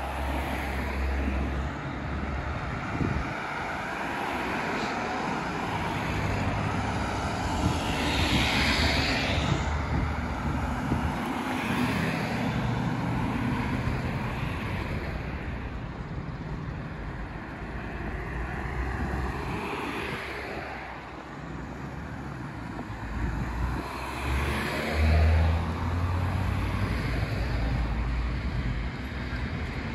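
Outdoor city traffic noise, with several vehicles passing one after another; the loudest pass comes near the end.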